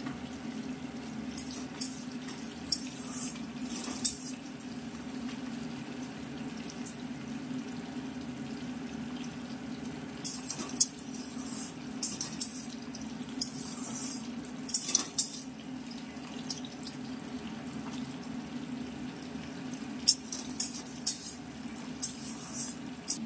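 Metal spatula scraping and stirring Gobindobhog rice as it fries in ghee in a metal kadai, grains rattling against the pan. The scraping comes in three spells of quick strokes, near the start, in the middle and near the end, over a steady low hum.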